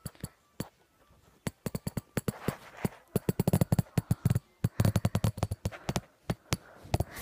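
Handling noise from a phone held close to its microphone: rapid, irregular clicks, knocks and rubbing as it is moved about and pressed against fabric, with a few heavier thuds near the middle.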